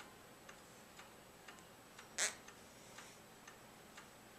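A clock ticking steadily about twice a second in a quiet room. A brief, louder hiss comes about two seconds in.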